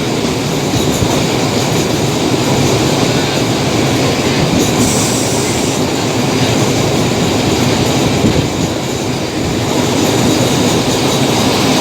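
Diesel-hauled passenger train running along the track: a steady rumble and clatter of wheels on rails, with a brief high-pitched squeal about five seconds in.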